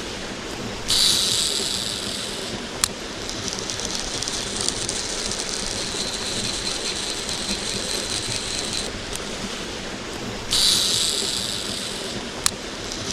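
Steady rush of a mountain stream. Twice, a baitcasting reel's spool whirs in a high buzz for about a second and a half on the cast, each time ending in a sharp click, with a fainter whir of the reel being wound in between.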